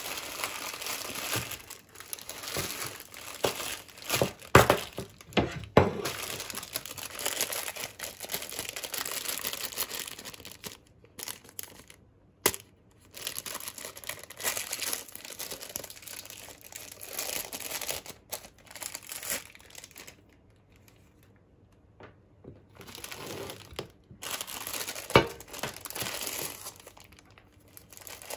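Plastic ice cream wrappers crinkling and tearing as they are opened, with irregular crackling, a few sharp snaps and a quiet pause about two-thirds through.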